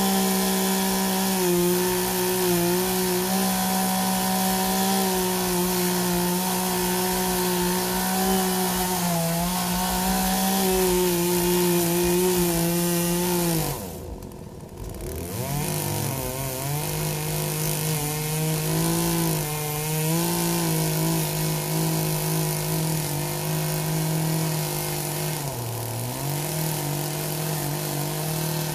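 Poulan 18-inch two-stroke gas chainsaw running at high revs while cutting into a tree stump. Roughly halfway through the revs drop sharply, then climb back to a slightly lower steady pitch, with another brief dip near the end.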